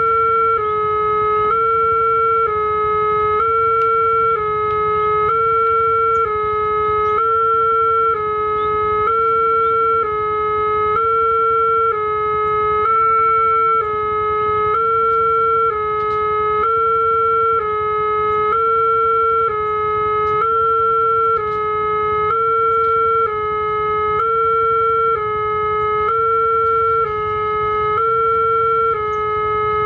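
Railway level-crossing warning alarm sounding its steady two-tone signal, alternating between a higher and a lower note, each held just under a second. It is the warning that a train is approaching and the crossing barrier is down.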